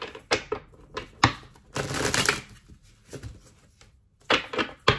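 Tarot cards being shuffled and handled: a run of sharp card snaps and taps, with a denser half-second shuffling rush about two seconds in and another cluster of snaps near the end.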